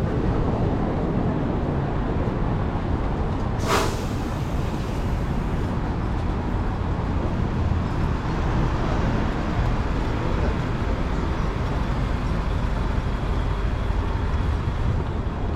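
Steady low rumble of city street traffic, with one short, sharp hiss about four seconds in.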